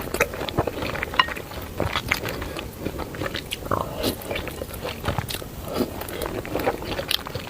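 Close-miked eating of spicy noodles: wet chewing and biting, a steady run of many small irregular mouth clicks.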